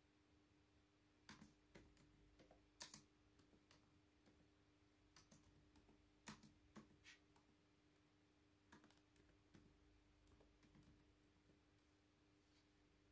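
Faint, irregular clicks of laptop keys being typed and pressed, in short scattered groups, over a faint steady hum.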